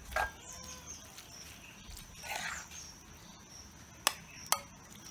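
A serving spoon scraping curry into a ceramic bowl, then clinking twice against it, the two clicks about half a second apart near the end. A thin steady high whine runs underneath.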